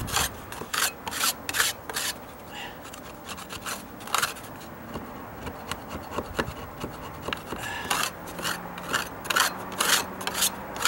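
Putty knife scraping across a wooden deck step in repeated short strokes, taking off a high spot of partly hardened patch material before it dries all the way. The strokes come quicker in the last few seconds.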